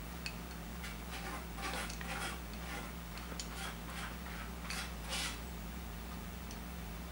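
Metal loom hook scraping and clicking against the pegs of a wooden knitting loom and the yarn as loops are lifted off, about a dozen short scratchy strokes at an uneven pace.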